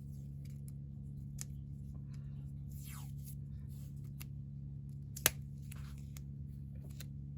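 Ruger LCP II pistol being handled during disassembly: light clicks and scrapes of small metal parts, with one sharper click about five seconds in, over a steady low hum.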